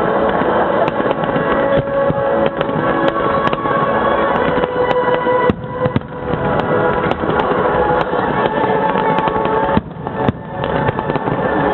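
Fireworks bursting in quick succession, many sharp bangs, with music playing throughout; the din drops briefly about halfway through and again near the end.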